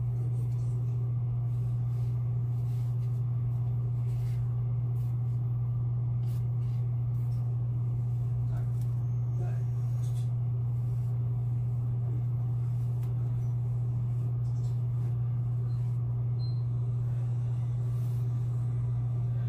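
Steady low hum.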